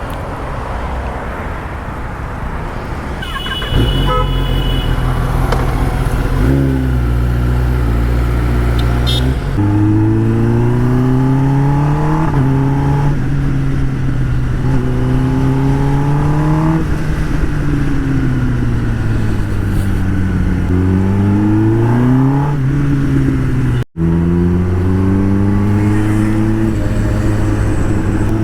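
Kawasaki ZX10R's inline-four engine under way, its pitch climbing with revs and stepping down at each gear change, several times over. A short vehicle horn toot sounds about three to four seconds in.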